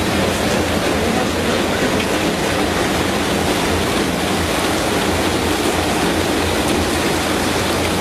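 Brush potato washing and peeling machine running steadily: brush rollers turning and potatoes tumbling against them under a water spray, an even rushing noise with a low mechanical hum beneath.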